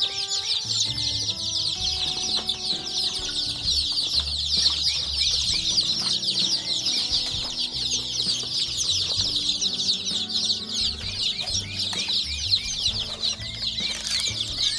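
A brood of five-day-old local hen chicks peeping all at once: a dense, unbroken chorus of short, high chirps.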